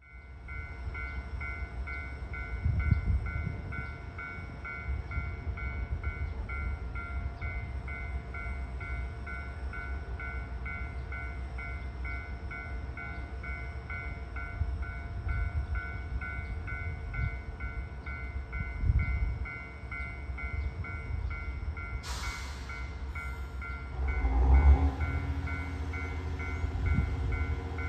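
A railway warning bell ringing in an even pulse, about two to three strokes a second, over a low rumble. About three-quarters of the way through, a louder, fuller sound joins it with a swell of low rumble and steady tones.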